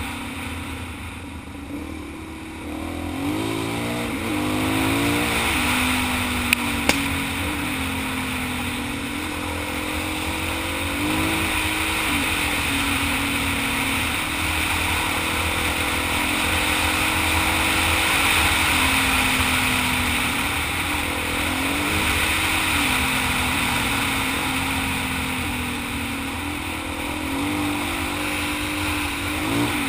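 Dual-sport motorcycle engine running under way, its pitch rising and falling with throttle and gear changes, over a steady rushing noise. Two sharp clicks about six and a half seconds in.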